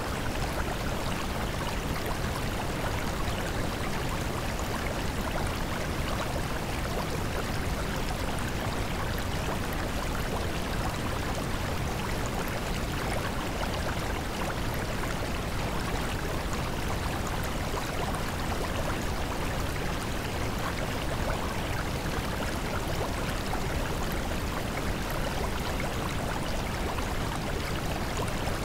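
Steady, unchanging rushing noise, like running water or hiss, with no pitch or rhythm. It is the masking sound bed of a subliminal affirmation track.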